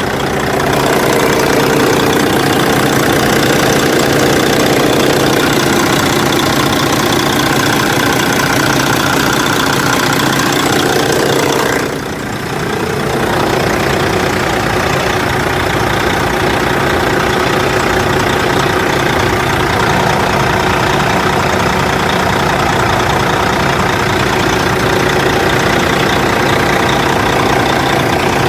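Kenworth dump truck's Caterpillar diesel engine idling steadily, heard close up at the engine bay, briefly fainter about twelve seconds in.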